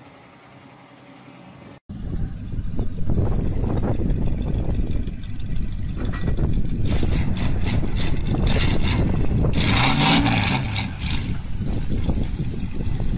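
GAZ-66 army truck's V8 engine running steadily as the loaded truck crawls through dense dry brush. From about seven to eleven seconds in, a crackling, scraping rustle of brush and branches against the truck sounds over the engine. The first two seconds hold only a quieter steady hum.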